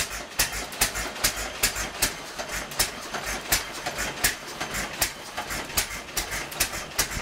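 Single-cylinder hit-and-miss engine, a Nelson Bros. Little Jumbo from about 1920, pounding as it drives a wild rice processor, with an even clatter of sharp knocks about two or three times a second over a low thumping.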